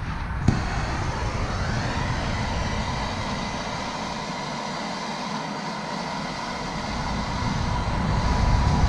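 Hand-held gas torch: a click about half a second in, then the flame hissing steadily as it heats a seized suspension bolt, with a faint whistle that rises and then holds. The hiss grows louder near the end.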